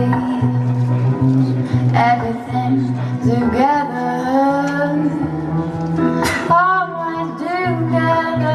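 A woman singing a song with guitar accompaniment, performed live; her voice slides and wavers in pitch over steady held low notes.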